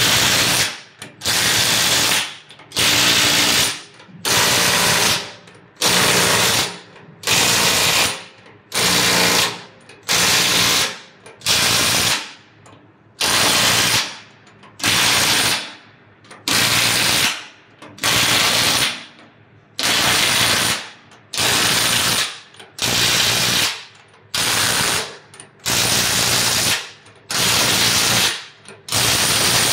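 Impact wrench with a socket hammering the nuts of a fresh water tank's manhole cover tight, in about twenty short bursts of roughly a second each, one after another, as the cover is bolted shut.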